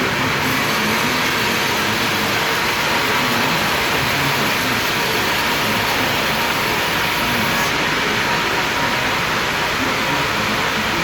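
Sawmill machinery running with a steady, even noise.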